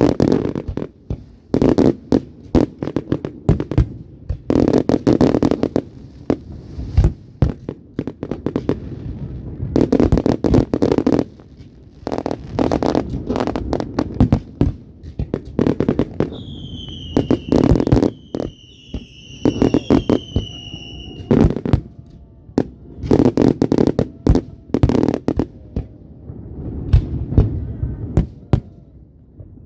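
Fireworks going off in quick succession, sharp bangs and crackling bursts. Partway through come a few falling whistles.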